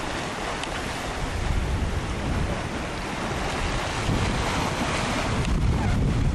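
Wind buffeting the microphone over the steady rush of choppy sea water around a sailing yacht under way.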